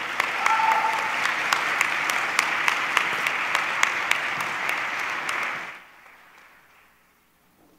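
Audience applauding, a dense patter of clapping with some close, sharp claps standing out. It dies away about six seconds in.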